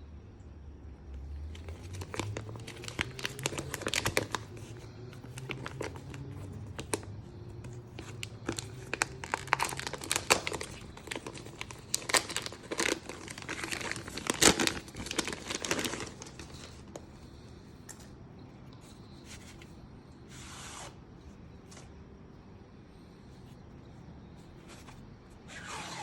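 Packaging being unwrapped by hand: wrapping crinkling and tearing, with many small clicks and handling knocks, busiest over the first two-thirds. It then goes quieter, with a couple of brief sliding sounds near the end.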